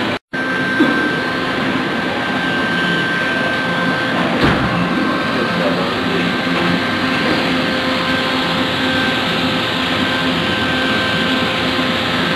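Planon hot-air overlap welding machine running: a steady blower hiss with a constant whine as it drives along a PVC seam. A short gap just after the start and a single knock about four and a half seconds in.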